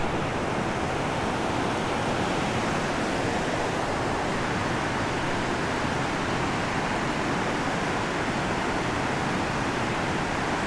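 Water pouring over a low dam spillway: a steady rush of falling water.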